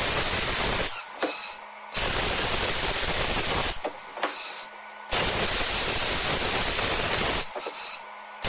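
Resanta IPR-40 inverter plasma cutter cutting a metal pipe: a loud, steady hiss of the arc and compressed air. It cuts out about a second in, starts again, cuts out again near the middle, and stops once more near the end, giving three stretches of cutting with short pauses between them.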